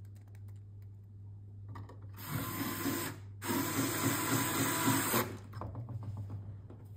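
Electric screwdriver running in two bursts, about a second and then about two seconds, driving the head unit's case screws back in. A steady low hum sits underneath.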